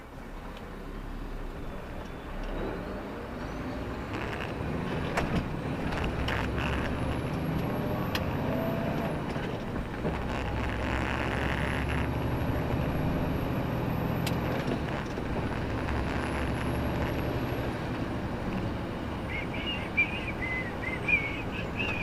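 Articulated lorry on the move, heard from inside the cab: diesel engine and road noise growing louder over the first few seconds, then steady. A thin high whine runs over it, and a few short high squeaks come near the end.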